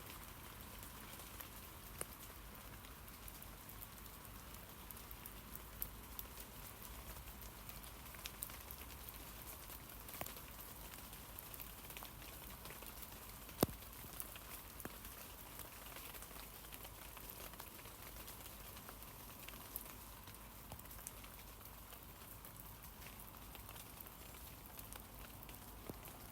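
Steady light rain falling on tree leaves: a soft even hiss with scattered drops ticking, one louder drop about halfway through.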